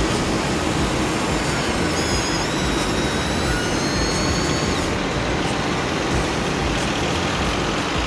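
Steady rush of breaking surf. A thin, high electric whine comes and goes from about two to five seconds in, fitting the remote-control toy excavator's small motors driving its arm.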